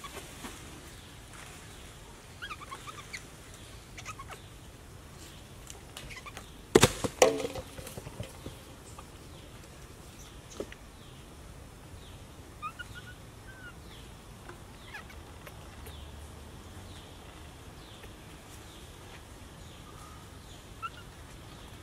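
Outdoor ambience with scattered short, faint chirping calls, and one loud sudden rustling knock about seven seconds in.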